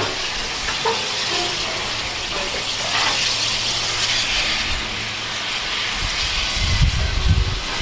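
Steam tank locomotive standing and hissing steam steadily while it takes water from a water column. A few low thumps come near the end.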